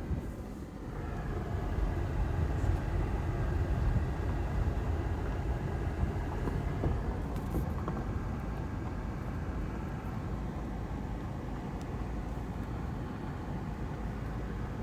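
A vehicle driving: a steady low rumble of engine and road noise that swells about a second in and then holds steady.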